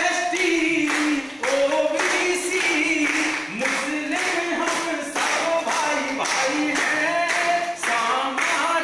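Men singing a Hindi song together without instruments, with the group clapping along in a steady beat.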